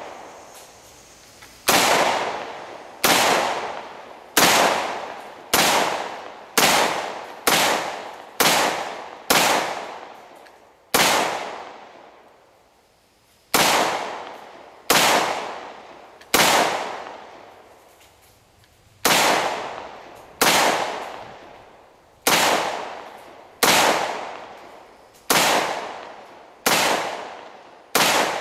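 Rock River Arms LAR-47, an AR-15-style rifle chambered in 7.62x39, fired semi-automatically: about twenty single shots at a steady pace of roughly one a second, each report trailing off in an echo. Two short pauses break the string near the middle.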